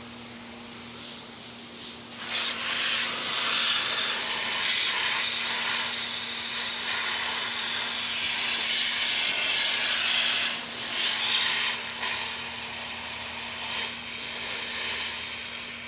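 Steady hiss of a water jet from a spray wand striking a Polaris RZR's radiator fins, rinsing the radiator through the front grille. The spray gets louder about two seconds in, over a faint steady low hum.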